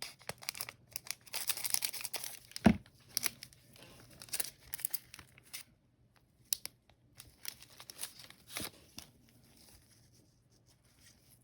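Trading card pack wrapper being torn open and crinkled by hand, with irregular tearing, rustling and crackling, and one sharp knock about three seconds in. The handling dies down over the last couple of seconds.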